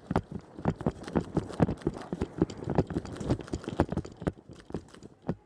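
Quick, irregular footfalls of a player running over hard ground, several sharp knocks a second.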